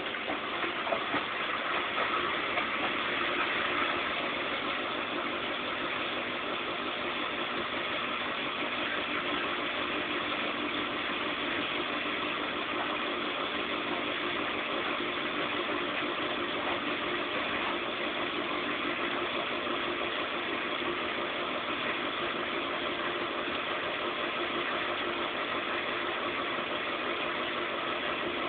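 Zanussi Z 630 washing machine running steadily, its motor turning the drum with an even hum and a rushing noise. It is a little louder for the first few seconds.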